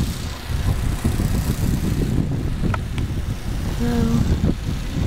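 Snowblower engine running with an uneven low rumble, and a brief pitched sound, like a short voice, about four seconds in.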